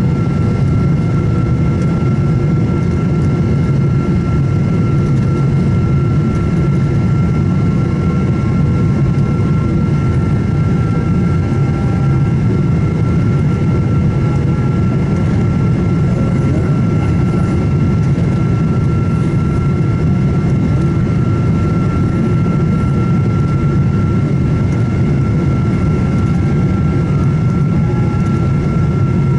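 Steady cabin noise inside a Boeing 777-200ER airliner on approach: a low rumble of engines and airflow with a constant high whine over it.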